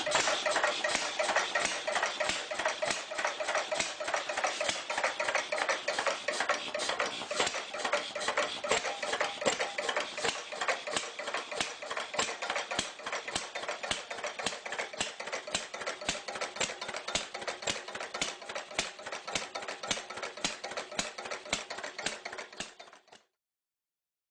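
Hugon gas engine running: an even, rapid mechanical clatter of ticks and knocks, growing gradually quieter and stopping near the end.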